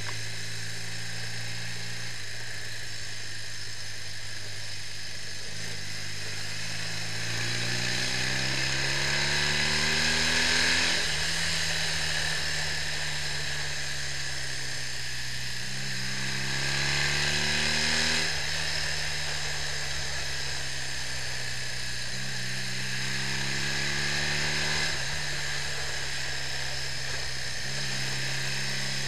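BMW R65's air-cooled flat-twin engine being ridden on the road, its note climbing with the revs three times and dropping back suddenly at each gear change, over a steady hiss.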